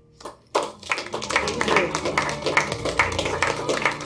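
A small group of people applauding, clapping their hands steadily, starting suddenly about half a second in.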